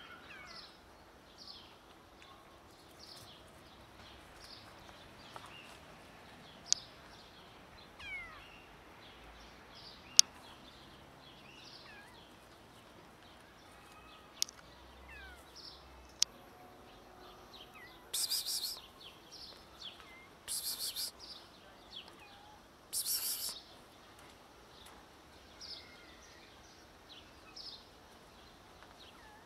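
Scattered short bird chirps over quiet outdoor background, with a few sharp clicks. Three brief hissing bursts, the loudest sounds, come in the second half.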